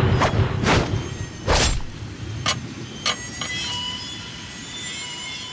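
A low rumble and a heavy thud, then a small hard object, a jade bangle, knocking on a hard surface three times at ever shorter gaps as it settles. Sustained tones of dramatic film score ring on after it.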